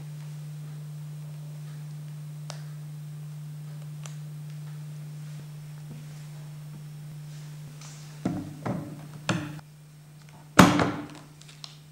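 A 16 mm coaxial film magazine being handled and opened: a few hard plastic-and-metal knocks and clicks as the lid and film core are worked, the loudest a sharp knock about ten and a half seconds in. Under them a steady low hum stops about nine and a half seconds in.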